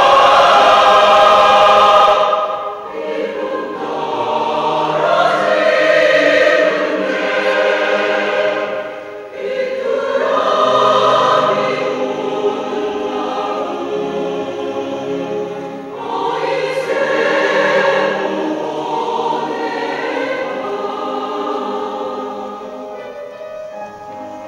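Mixed choir of men's and women's voices singing sustained phrases that swell and ease. The opening two seconds are loud, then the singing drops suddenly to a softer level and fades thinner near the end.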